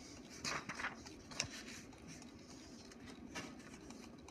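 A few short rustles of paper sliding in an inkjet all-in-one printer's output tray, with a sharp click about a second and a half in and another brief rustle near the end.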